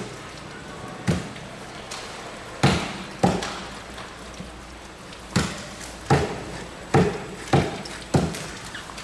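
Heavy kitchen knife striking a plastic cutting board while cutting a mahi mahi fillet: about eight sharp knocks at uneven intervals, several of them close together in the second half.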